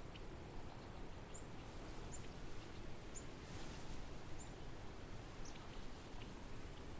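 Swallows calling in flight: short, high, thin chirps about once a second over a steady low background noise.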